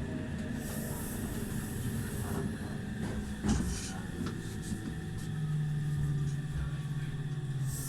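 Meitetsu 2000 series μSKY electric train running on the rails, with rail noise and a few clicks. A hiss sounds for about two seconds near the start, and a steady low hum comes in about five seconds in and holds until near the end.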